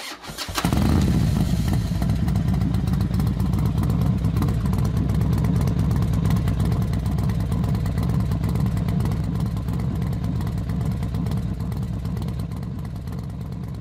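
Motorcycle engine noise, loud and steady, with a fast pulsing rattle; it starts suddenly about half a second in and eases off a little near the end.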